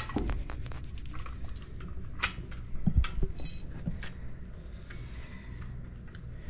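Metal hand tools, sockets and lug nuts clinking and clicking as they are handled at a truck wheel, with a low thump and a ringing metal clink about three seconds in.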